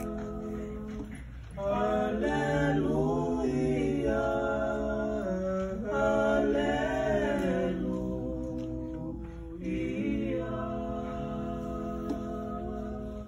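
Tongan church choir singing a hymn together in several voice parts, with long held notes. The singing swells louder about a second and a half in.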